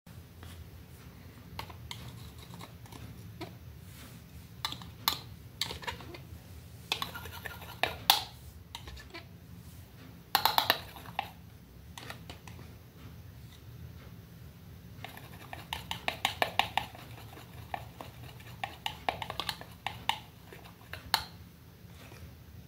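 Metal palette knife scraping and tapping against the wells of a plastic paint palette while mixing acrylic paint: scattered sharp clicks, with runs of quick scraping about seven seconds in, around ten seconds, and a longer run from about fifteen to twenty-one seconds, over a steady low hum.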